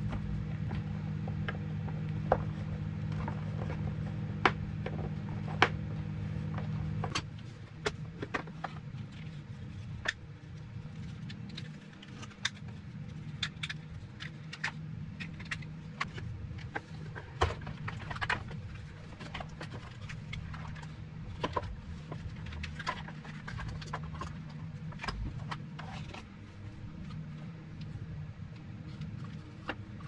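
Plastic parts of a vacuum cleaner being handled and pulled apart: irregular clicks, taps and knocks of hard plastic over a low steady hum, which drops noticeably about seven seconds in.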